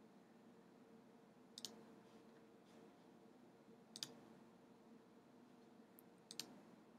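Sharp clicks of a computer mouse button: one about one and a half seconds in, one at about four seconds, then a faint one and a louder one close together near the end. Behind them is near-silent room tone with a faint steady hum.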